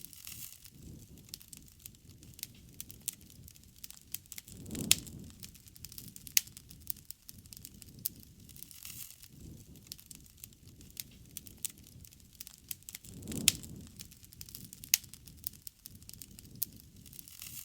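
Wood campfire crackling, with frequent sharp pops over a low rumble. The rumble swells twice, about five seconds in and again near thirteen seconds, each time with louder pops.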